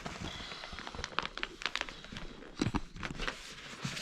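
Someone blowing breaths into an inflatable sleeping pad by mouth, with the pad's fabric rustling and a few short knocks and clicks.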